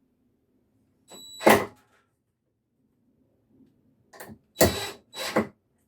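Cordless drill driving screws into wood in short bursts: one about a second in that starts with a high whine, then three quicker bursts near the end.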